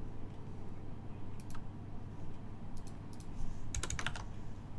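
Computer keyboard keys and mouse clicks: a few scattered clicks, then a quick run of keystrokes about four seconds in, during a copy and paste of code. A faint steady low hum lies under them.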